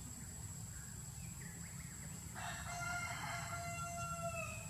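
A rooster crowing once: a single long call that starts about halfway through, holds steady and falls slightly at its end.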